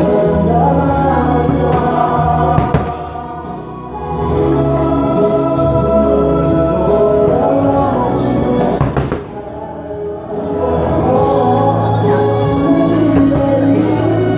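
Choral music with singing voices, with a few sharp bangs from bursting fireworks cutting through it.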